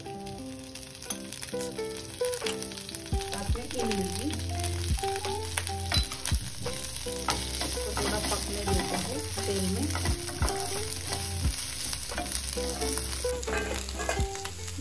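Ajwain (carom) leaves sizzling in hot oil in a nonstick frying pan, stirred with a wooden spatula that clicks and scrapes against the pan again and again.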